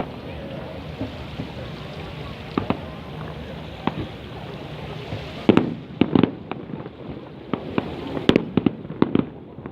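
Fireworks going off: scattered sharp bangs, then a quick run of many bangs and pops from about halfway through to near the end.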